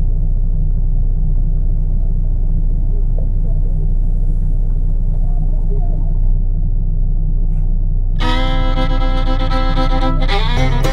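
Truck engine's steady low rumble. About eight seconds in, upbeat fiddle music comes in over it.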